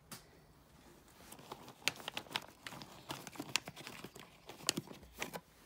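Plastic treat packet crinkling and rustling as a hand opens it and reaches in for horse treats, a run of irregular sharp crackles starting about a second in.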